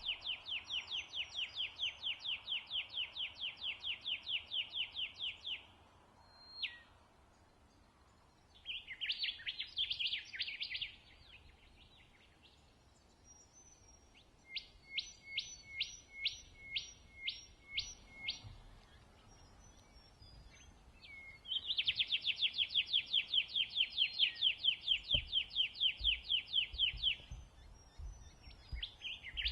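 Rufous whistler singing: a long rapid series of repeated whistled notes, about four or five a second, comes twice, lasting about five seconds each time. Between them are a short jumbled warble and a row of eight slower, evenly spaced notes, with quiet gaps between phrases.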